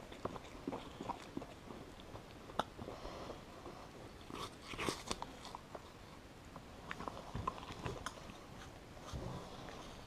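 Capybara biting and chewing a frozen ice pop: quiet, scattered small crunches and mouth clicks, with a cluster of louder bites about five seconds in.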